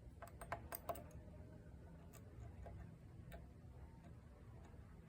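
Small metallic clicks of a dimple pick and tension tool working the pins of a DeGuard pin-in-pin dimple lock: a quick run of clicks in the first second, then a few scattered ones. The lock's pins have just reset.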